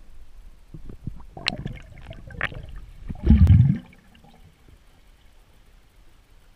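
Underwater water noise around the camera: scattered knocks and gurgles, building to a loud low bubbling gush about three seconds in that stops after half a second or so.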